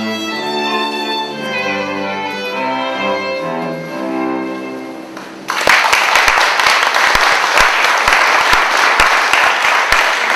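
A string trio with violin and cello plays dance music that ends about five seconds in; then audience applause breaks out suddenly and carries on, louder than the music was.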